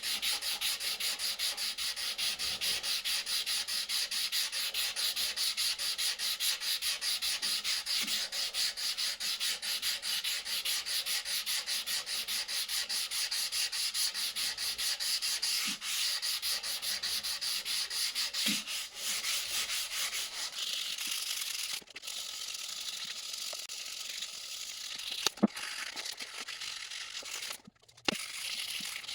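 Hand sanding with rapid, even back-and-forth strokes of abrasive on a tool part. About twenty seconds in the strokes give way to a steadier, less rhythmic scraping with an occasional sharp click.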